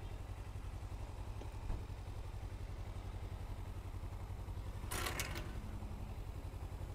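Sport motorcycle's engine idling with a steady, even low pulse as the bike creeps slowly into a parking spot. A short clatter about five seconds in.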